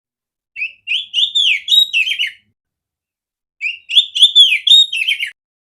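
Oriental magpie-robin (kacer) singing two nearly identical loud, clear phrases of quick whistled notes that sweep up and down in pitch, about three seconds apart.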